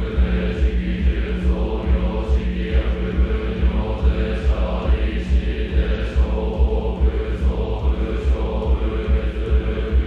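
Zen monks chanting a sutra in unison on a near-monotone, in an even pulse. A low beat keeps time, a little over two a second.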